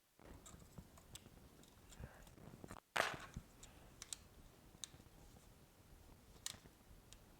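Faint, scattered clicks and taps of small parts and tools being handled on a repair bench, with one louder brief scrape or clack about three seconds in.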